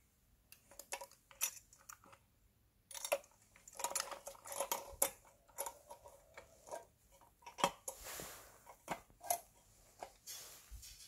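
A die-cast scale model tractor-trailer and its container box being handled: irregular small clicks and light knocks of plastic and metal parts, with a couple of brief scrapes a little after the middle and near the end.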